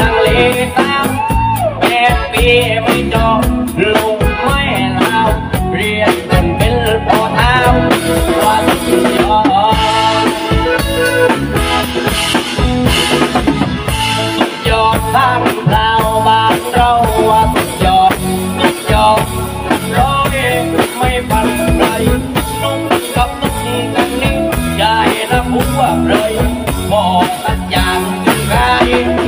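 Nang talung shadow-puppet theatre band music: a steady, driving drum beat under a wavering melody line.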